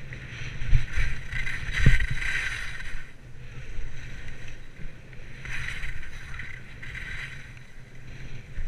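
Skis sliding and carving down packed, bumpy snow, the edges scraping in swells that come and go, over a steady low rumble. Two sharp thumps about one and two seconds in.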